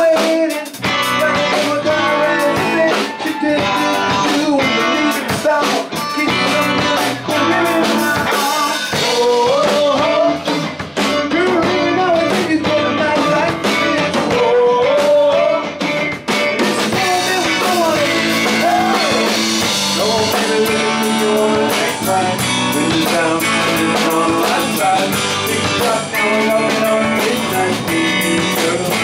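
Live band playing a country-rock song on electric bass, drum kit and guitar, with a singer at the microphone.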